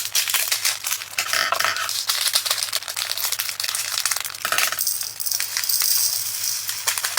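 Tiny resin diamond-painting drills being poured and shaken from a bag into a plastic storage container, a dense run of small clicks and rattles.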